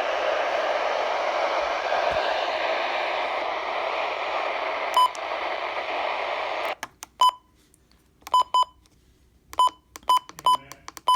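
Radio static: a steady loud hiss covers the warning broadcast, then about seven seconds in it cuts out and gives way to short, sharp beeping blips of interference. The signal is breaking up during the tornado warning broadcast.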